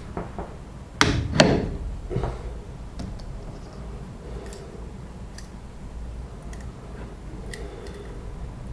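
Workshop knocks: two sharp knocks about a second in and a softer one just after two seconds, then a scattering of light ticks over a steady low hum.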